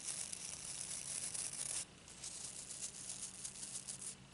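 Fingertips rubbing over the stiff bristles of a small toy doll hairbrush, a fast scratchy rustle with a short pause about two seconds in.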